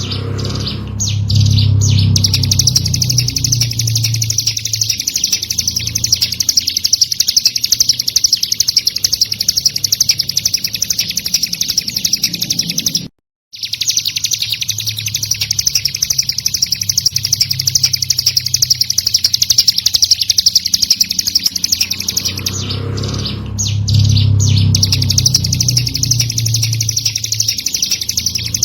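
Ciblek gunung singing: a fast, unbroken run of high, rapidly repeated chirping notes. It cuts out completely for about half a second around the middle, then resumes. A low rumble sits under it twice, near the start and near the end.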